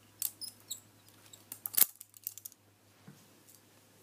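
Butterfly knife being flipped: its metal handles clicking and clacking together in a quick irregular run, with the sharpest clack about two seconds in and a few fainter clicks after.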